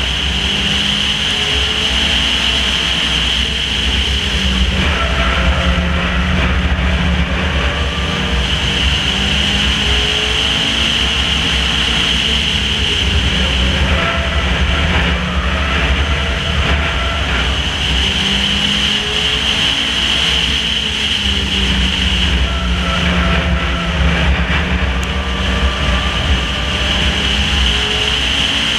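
Onboard sound of a 4Fun-class stock car racing: the engine note rises and falls in a repeating cycle as the car laps the oval, under a steady loud rush of wind and tyre noise.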